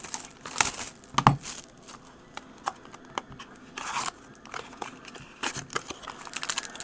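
Plastic shrink-wrap crinkling and tearing as a sealed trading-card box is unwrapped, with two sharp taps in the first second or so.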